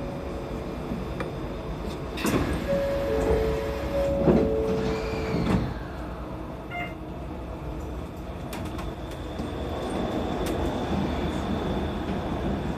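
Shonan Monorail suspended (SAFEGE-type) train at a station, its cab humming: three thuds of the sliding doors closing, with a steady two-note tone for about three seconds. Then the train pulls away, its running noise slowly growing near the end.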